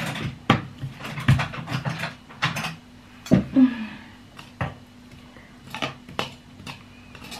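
Electric hand blender with a chopper bowl, run in short pulses to grind onion, garlic, chilli and andaliman into a paste. About three seconds in it gives way to scattered knocks and clinks, as the motor unit is lifted off and a fork scrapes and taps in the plastic bowl.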